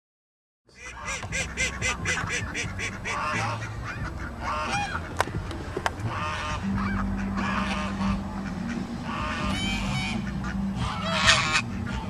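A flock of waterfowl calling over one another, cutting in after a brief silence. A quick run of evenly repeated calls comes about a second in, then calls overlap steadily, with the loudest burst near the end.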